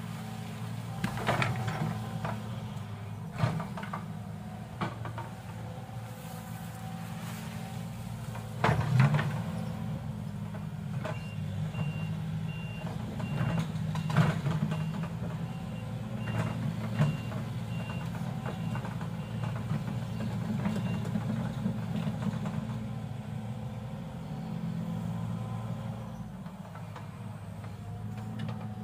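Excavator's diesel engine running steadily, with scattered sharp metal clanks and knocks. A high-pitched on-off beeping of a travel alarm sounds for about ten seconds in the middle.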